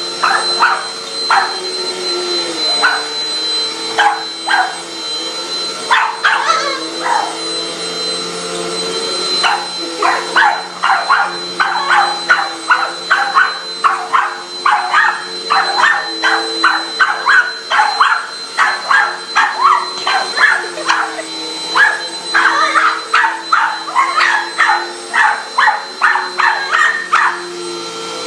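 Vacuum cleaner running steadily while a dog barks at it over and over: scattered barks at first, then rapid barking, about two a second, from around ten seconds in.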